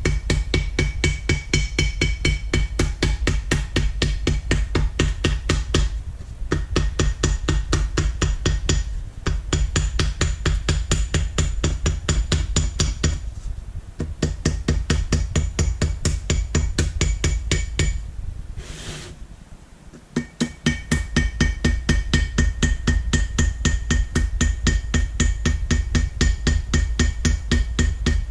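Small hammer tapping gasket paper against the edge of a painted metal part, cutting a paper gasket out along the edge. The light blows come quickly and evenly, about five a second, each with a faint metallic ring. There are a few short pauses and a longer break about two-thirds of the way through.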